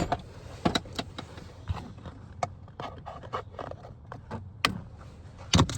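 Irregular clicks, knocks and light scrapes of hands working on a truck's door speaker and its wiring inside the open door, with a louder knock near the end.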